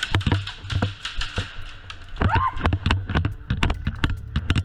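Airsoft guns firing: a fast, irregular run of sharp clicks and snaps, several a second.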